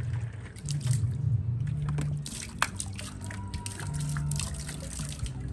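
Water dripping and splashing onto the harbour surface in irregular sharp spatters, over a steady low hum.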